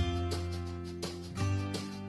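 Background music: strummed and plucked guitar over a steady bass line.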